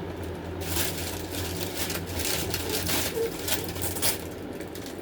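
Crinkling and rustling of plastic gift packaging being handled, a string of irregular crackles lasting about three seconds.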